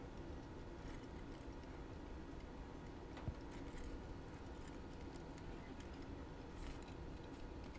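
Faint small metallic clicks of a small screwdriver turning a screw in a toy locomotive's pressed-steel frame, with one sharper click about three seconds in, over a steady low room hum.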